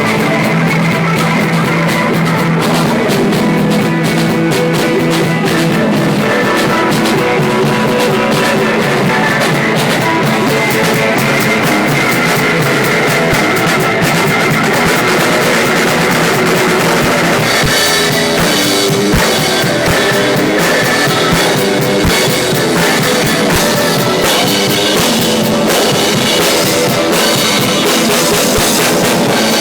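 A live rock band playing a blues song, with a drum kit and electric guitar.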